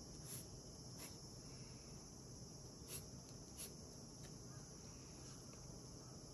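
Faint scratching and a few light ticks of a colored pencil on drawing paper, over a steady high hiss.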